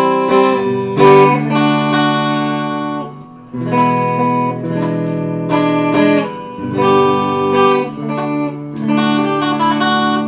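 Squier Classic Vibe Starcaster semi-hollow electric guitar played through an amplifier on both pickups (middle switch position): a run of picked chords, each left to ring, in a few groups with short breaks between them.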